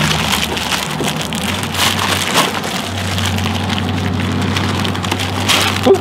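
Ice cubes shaken and spilled from a torn plastic bag of store ice, clattering and rattling in a dense patter onto a steel tray, with the plastic crinkling.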